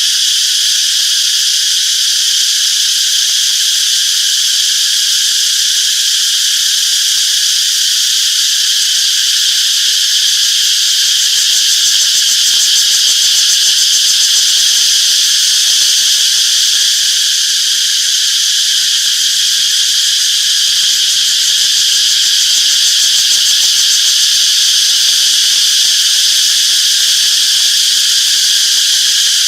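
Chorus of cicadas buzzing steadily: a dense, unbroken high-pitched drone.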